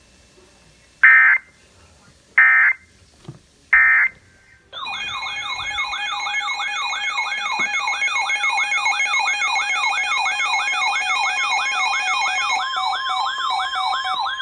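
Three short bursts of EAS digital data tones about a second and a half apart, the end-of-message code of an emergency alert. From about five seconds in, an electronic siren-like alert tone follows, several pitches warbling up and down about two and a half times a second.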